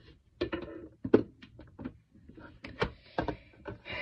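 Hard plastic clicking and clattering as skincare containers are set into a plastic storage box and its clear plastic lid and drawers are handled: a quick run of sharp clicks and knocks, the loudest about a second in.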